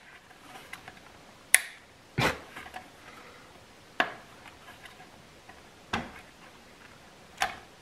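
Five sharp plastic clicks and taps at uneven gaps: the wiring connector plugs and plastic headlight housing of an ATV headlight being handled and unplugged by hand.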